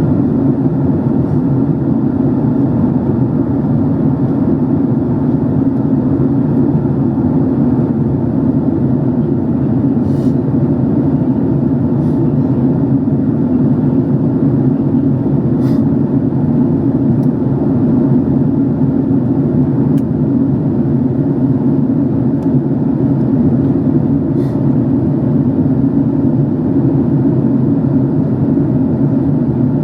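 Steady drone of a Boeing 767-300 in flight, heard inside the passenger cabin: engine and airflow noise, deep and unbroken, with a few faint clicks.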